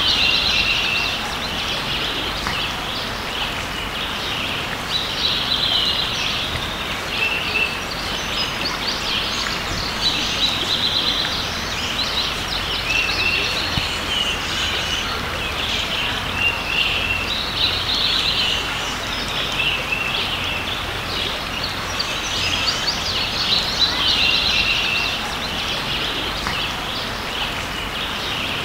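A creek running steadily, with a songbird singing short phrases over it every two or three seconds.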